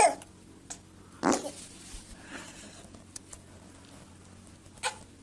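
A short fart about a second in, followed by a few faint clicks and another brief burst near the end.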